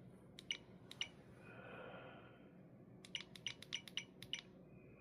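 Faint, light clicking taps of a fingertip on the Insta360 GO3S's small touchscreen while paging through menus: a few taps in the first second, then a quick run of about eight around three seconds in, with a soft breathy hiss between them.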